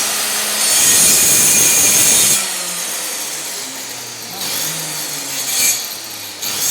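Handheld power tool cutting into a wooden wardrobe door, machining the recess for a flush sliding-door handle. It is loud for the first couple of seconds, eases off a little under load changes, then picks up again near the end.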